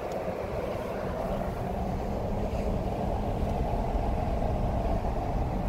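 Road noise inside a moving car: a steady rumble of tyres and engine that grows gradually louder.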